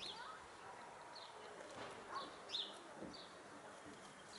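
Short high bird chirps, a handful scattered through, with a couple of soft low clucks from brown laying hens foraging close by.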